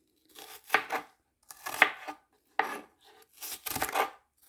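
Crisp crunching of raw onion pieces being handled into a jar, in four short bursts about a second apart.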